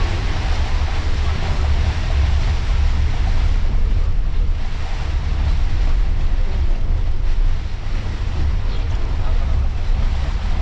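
Steady noise inside the cab of an intercity bus driving through heavy rain: a low rumble of the engine and tyres on the wet road under an even hiss of rain on the windscreen.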